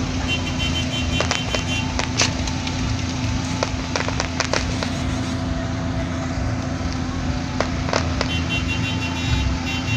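Aerial fireworks going off: a string of sharp pops and crackles, with two runs of rapid crackling near the start and near the end, over a steady low rumble and hum.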